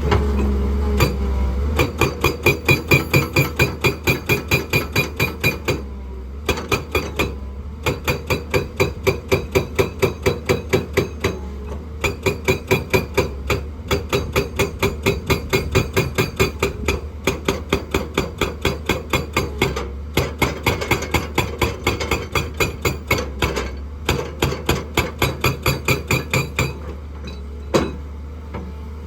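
Hydraulic rock breaker on a JCB excavator hammering rock: rapid sharp metallic blows, about seven a second, in runs of a few seconds with short pauses between. The excavator's engine drones steadily underneath.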